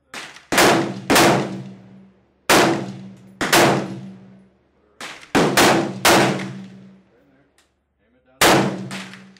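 Gunfire on a covered range firing line: about nine sharp shots, some only half a second apart, each with a long echoing tail. The shots come too fast for one bolt-action rifle, so several guns are firing.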